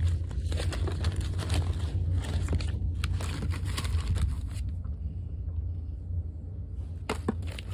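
Baseball cards in plastic sleeves and hard plastic holders rustling and clicking against each other as a hand digs through a plastic storage bin, over a steady low rumble from the phone being handled. The rustling stops for about two seconds a little past the middle, then starts again.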